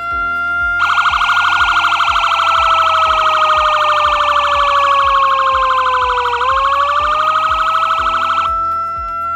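Boss 200-watt dual-tone electronic police siren sounding two tones at once: a slow wail that sinks in pitch and then climbs back, and, from about a second in until near the end, a rapidly pulsing higher tone layered over it. Near the end the pulsing tone stops and the wail carries on alone, then cuts off.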